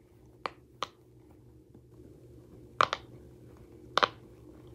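Bubbles of a round silicone Pop-It fidget toy pressed by fingers, giving sharp little pops: two in the first second, then one near three seconds and one about four seconds in.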